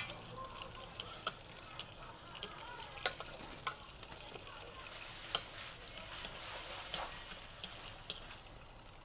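Food frying in hot oil in a pan: a steady sizzle broken by sharp pops of spattering oil, the loudest a few seconds in.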